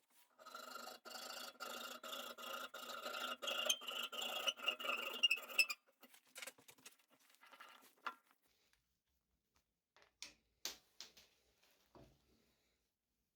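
Rubbing on wood in the workshop, a steady pitched hum broken by short regular gaps, which stops about six seconds in and is followed by a few scattered light clicks and taps.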